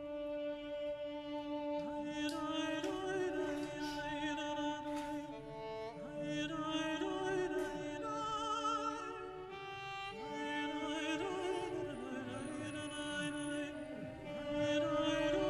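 Background music: a slow melody of long held notes with vibrato.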